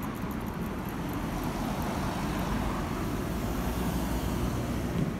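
Street traffic noise: a steady rumble of cars passing on the road.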